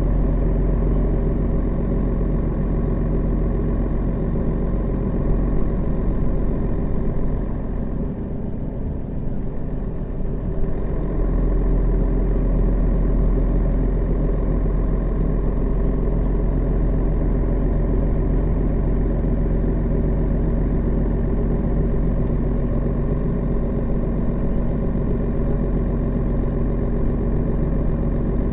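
Setra S 315 NF city bus with a manual gearbox, its diesel engine running steadily. The engine eases off about eight seconds in, then pulls again from about eleven seconds on.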